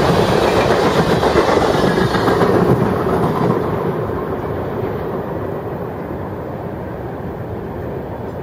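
Freight train of tank cars rolling away on the rails: the rumble of steel wheels and cars, loud at first, fades steadily over the last several seconds as the end of the train moves off, the higher sounds dying away first.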